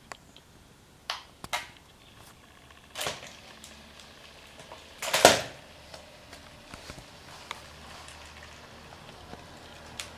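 Sony Aibo ERS-210 robot dog starting to move: clicks and short whirring bursts from its leg joints and servo motors, the loudest about five seconds in, then scattered faint ticks.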